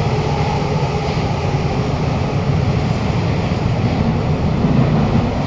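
Steady interior running noise of a Kawasaki-CRRC Sifang CT251 metro train travelling through a tunnel: a loud low rumble of wheels on rail with a hiss over it and a faint motor hum that fades away. The next car has bad flat wheels, which the uploader says can be heard on this run.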